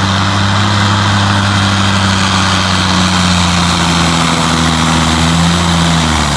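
Semi truck's diesel engine running at full throttle under heavy load as it pulls a weight-transfer sled, a loud, steady drone. Its pitch sags slightly in the second half as the engine lugs down against the sled.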